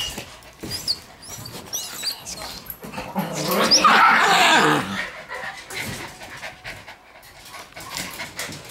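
Shiba Inu puppies whimpering in short high squeaks, then loud panting and breathing right at the microphone for a couple of seconds in the middle, with small clicks and rattles scattered through.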